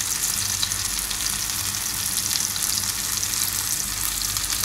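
Karimeen fish shallow-frying in oil in a cast-iron pan with crushed shallots and garlic, a steady sizzle with fine crackles and pops.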